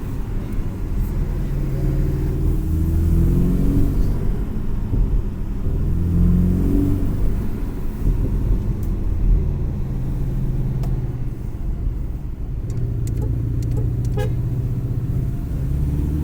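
Porsche 718 engine under way on the road, its note rising in pitch twice as it accelerates in the first half, then holding steady, with a few short sharp clicks in the second half.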